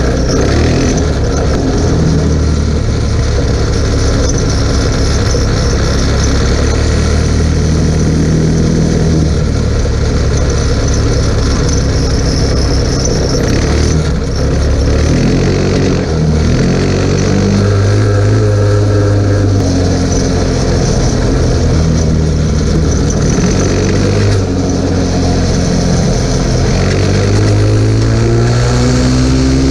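Chinese 150 cc ATV's single-cylinder four-stroke engine running under way, its pitch climbing and falling as the throttle opens and closes, with short drops in revs about fourteen and sixteen seconds in and a long rising rev near the end.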